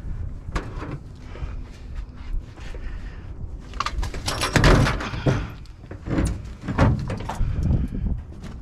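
Knocks, scraping and clatter of a heavy scrap item being pushed and loaded into a vehicle. The loudest burst of clatter comes about four to five seconds in.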